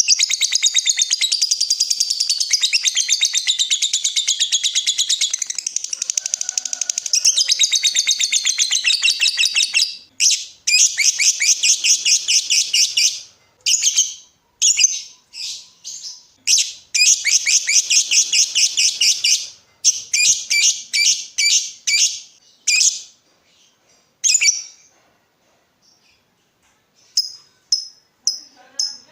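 Lovebird singing in very rapid, chattering trills. A long unbroken run lasts about ten seconds, then shorter runs and bursts follow. There is a brief lull a few seconds before the end, and then the trilling starts again.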